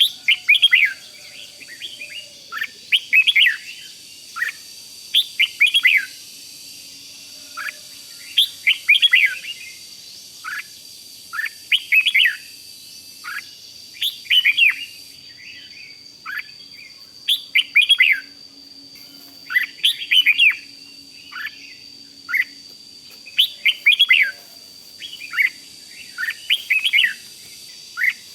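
Red-whiskered bulbul singing: short, bright warbled phrases, repeated every second or two.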